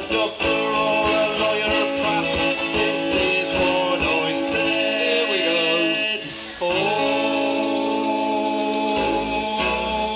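Band music: strummed acoustic guitar under a melody of long held notes.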